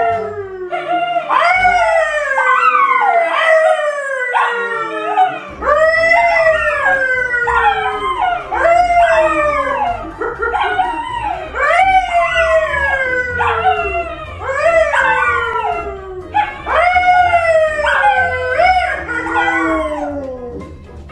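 A yellow Labrador retriever and a brown poodle howling along with a man who howls with them through pursed lips. The long howls overlap one after another, each sliding down in pitch.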